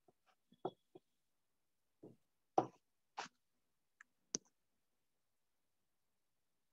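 Computer mouse clicking: a handful of faint, separate clicks and small knocks over the first four and a half seconds, the loudest about two and a half seconds in.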